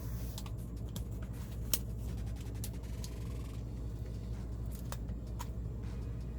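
Scattered small sharp clicks of plastic LEGO pieces and a sticker sheet being handled, the sharpest about two seconds in, over a steady low hum.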